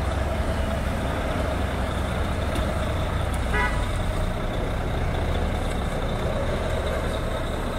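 Volvo semi truck's diesel engine running steadily as a low drone while the truck rolls forward on snow under tow, with a brief faint tone about three and a half seconds in.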